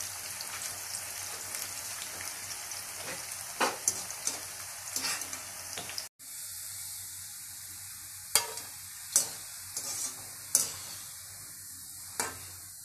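Bitter gourd slices deep-frying in hot oil in a steel kadai, a steady sizzle. A wire spider skimmer stirs and lifts them, with several sharp clinks against the pan in the second half.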